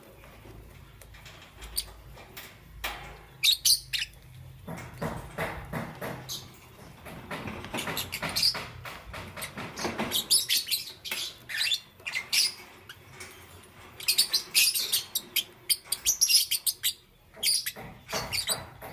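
Lovebirds chirping in quick clusters of short, sharp, high chirps and squeaks, with brief pauses between the bursts.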